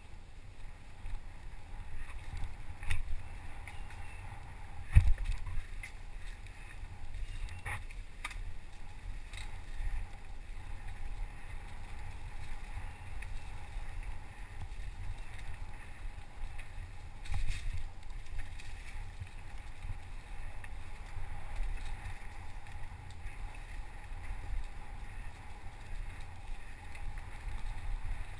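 Wind rumble on a helmet-mounted camera's microphone and the rattle of riding over a bumpy dirt forest trail, with occasional sharp knocks from bumps, the loudest about five seconds in.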